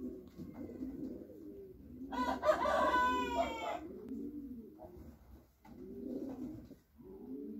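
Domestic pigeons cooing, a string of low rising-and-falling coos one after another. About two seconds in, a louder, higher-pitched call lasting under two seconds rises over the cooing.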